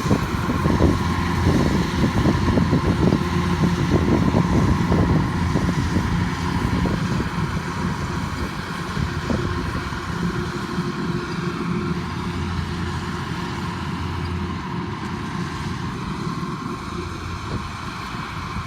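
Engine of a farm machine running steadily, gradually growing quieter from about halfway through.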